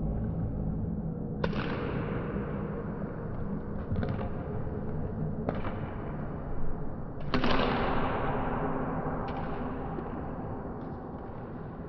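Sharp impact sounds echoing through a large indoor sports hall: two loud hits with long echoing tails, one near the start and one just past the middle, and several fainter ones between and after.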